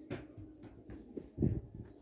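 A few light knocks and clicks, with one heavier, duller thump about one and a half seconds in.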